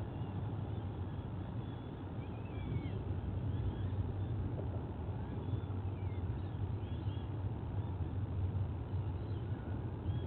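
A steady low rumble with faint, scattered high chirping bird calls over it.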